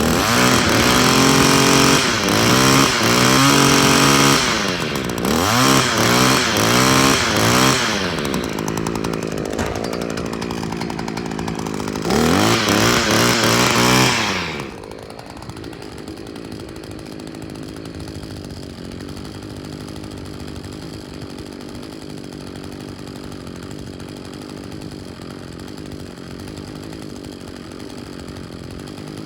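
Echo two-stroke string trimmer engine running after a carburetor cleaning, revved up and down several times with the throttle, then its pitch falls away about fifteen seconds in and only a quieter steady sound remains.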